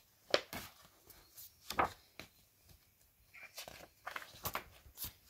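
Handling of a picture book: scattered light taps and paper rustles as its pages are turned, about half a dozen short sharp sounds.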